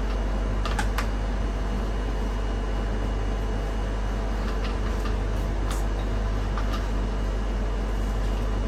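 Sheffield 7,000 BTU portable air conditioner running with a steady hum and low rumble, with a few faint clicks.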